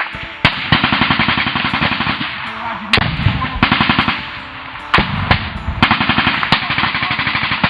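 Sustained automatic rifle and machine-gun fire in a firefight: rapid shots in long bursts, with a few louder single cracks standing out.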